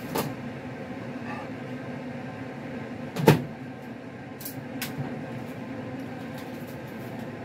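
Microwave oven door opened with a sharp clunk of its latch about three seconds in, then a few light clicks as the plate is taken out. A steady low hum runs underneath.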